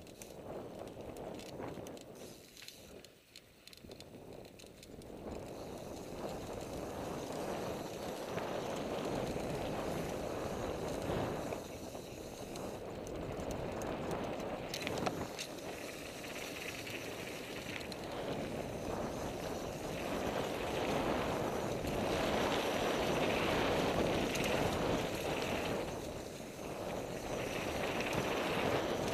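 NS Bikes Soda mountain bike riding fast down a dirt flow trail: tyres rolling over dirt with scattered clicks and rattles, mixed with wind rush on the microphone. It grows louder after the first few seconds as speed builds.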